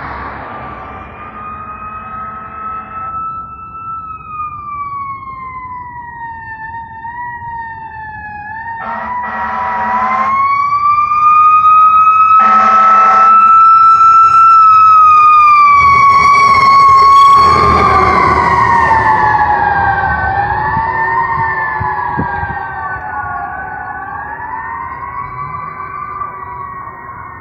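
Emergency rescue squad vehicle's wailing siren approaching, passing close and fading away, with two short air-horn blasts as it nears. The wail drops in pitch as the vehicle goes by, with a burst of engine and road noise at the moment it passes.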